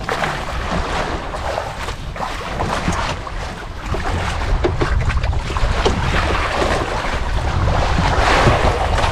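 Wind buffeting the microphone, a steady low rumble and hiss.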